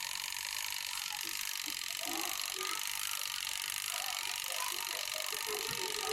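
Haier washing machine draining through its timer-controlled drain: a steady hiss of water running out.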